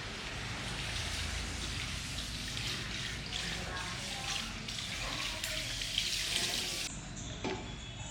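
Water running from a tap and splashing into a basin, steady, with small splashes throughout.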